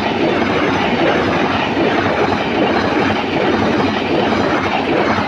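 Passenger train coaches passing close by at speed: a loud, steady noise of steel wheels running on the rails.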